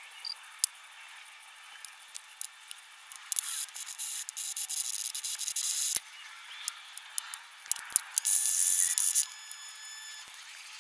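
Small metal hand-plane parts being handled and cleaned: scattered light clicks and taps, with two longer hissing bursts, one of about two and a half seconds a third of the way in and a shorter one near the end.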